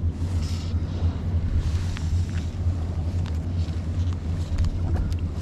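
Steady low engine hum, with fly line hissing faintly as it is stripped by hand and a few light ticks.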